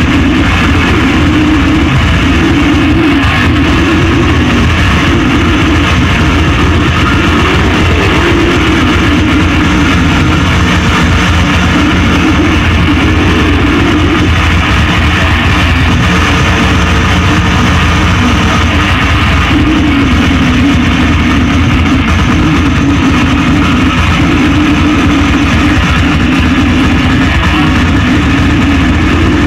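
Metal band playing live: distorted electric guitar and drums at a steady, very loud level, with no breaks.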